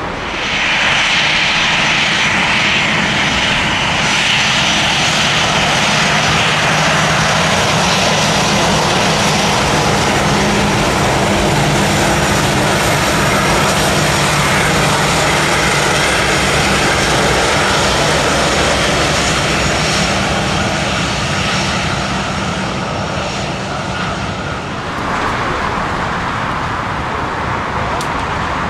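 Jet airliner engines passing close, loud and steady. The sound sets in suddenly at the start and eases off about 25 seconds in.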